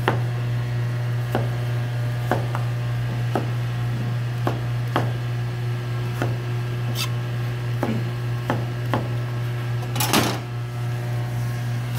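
Chef's knife cutting raw potato into cubes on a plastic cutting board, each cut ending in a sharp knock on the board, roughly once a second and unevenly spaced. About ten seconds in there is a brief scraping rustle as the cubes are pushed together by hand. A steady low hum runs underneath.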